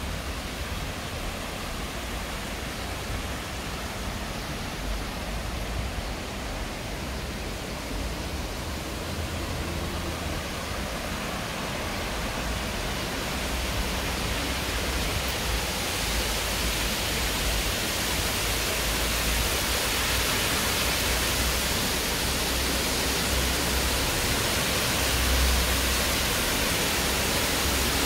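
Rushing stream water: a steady wash of noise that grows louder and brighter over the second half.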